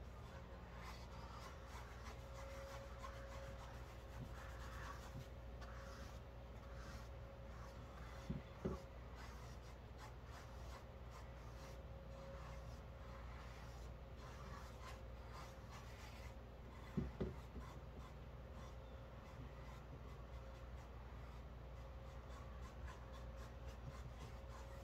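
Soft scratchy strokes of paintbrushes spreading acrylic paint on canvas, over a faint steady hum. Two brief knocks stand out, about 8 seconds in and again near 17 seconds.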